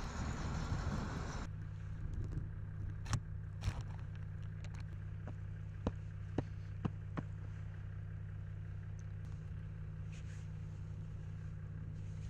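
A crawler bulldozer running, a loud rushing engine-and-track noise that cuts off about a second and a half in. After the cut, a steady low engine hum like an idling diesel, with a few sharp clicks and knocks scattered through the first half.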